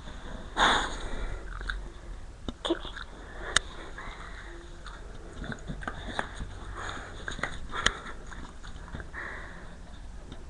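A dog sniffing and snuffling right at the microphone, with one loud breathy sniff about half a second in, further short puffs later on, and scattered sharp clicks.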